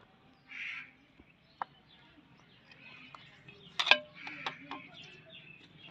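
Kitchen knife cutting through dough and clicking against a terracotta plate: a single sharp click, then a loud cluster of clicks about four seconds in.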